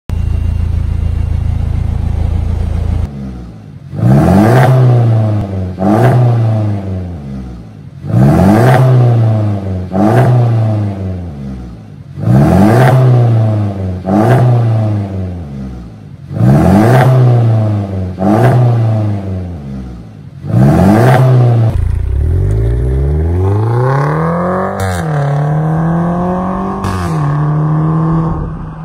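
2019 Mercedes-Benz C300 (W205 facelift) 2.0-litre turbo four-cylinder through an Armytrix catless valved exhaust. It idles, then is revved loudly nine times in quick blips, each rising and falling back. Then it accelerates hard through two upshifts, the pitch dropping at each shift and climbing again.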